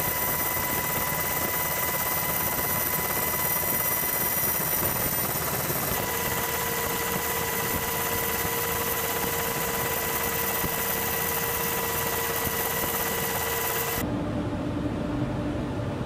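Steady helicopter engine and rotor noise with high, unchanging turbine whines over a wide rushing hiss, heard from inside the aircraft. About two seconds before the end it cuts abruptly to a duller steady rumble.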